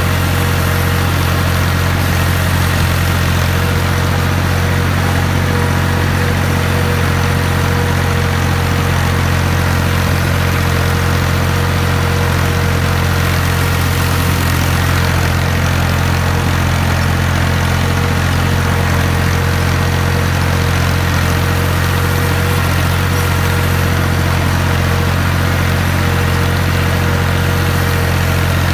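Al-Ghazi tractor's diesel engine running steadily while pulling a disc harrow through a field, heard from the driver's seat close to the exhaust stack.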